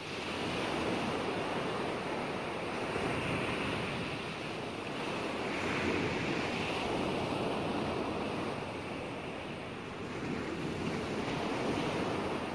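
Ocean surf: waves washing onto a sandy beach, swelling and ebbing gently, fading in at the start.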